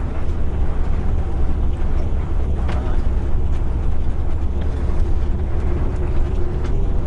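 Moving coach bus, heard from inside: a steady low engine and road rumble with a faint hum, and one brief knock about two and a half seconds in.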